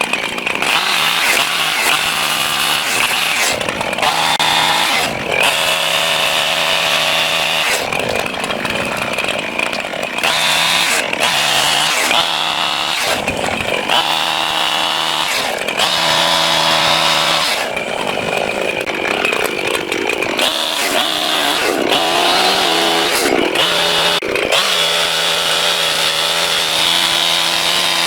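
Gas chainsaw running and cutting through dead oak log sections, its engine pitch repeatedly dropping as the chain bites into the wood and climbing again as it eases off.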